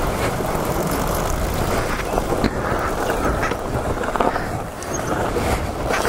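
Dirt bike engine running as the bike rides a rough dirt trail, with wind buffeting the helmet-mounted microphone and a few short knocks from the bike over the ground.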